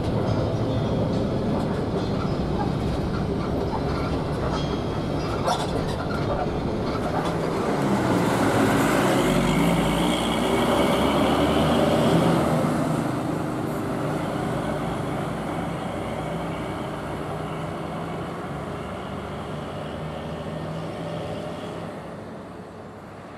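Steady engine and road rumble of a moving coach bus. About halfway through it swells as the bus passes close by, then fades steadily as the bus drives away.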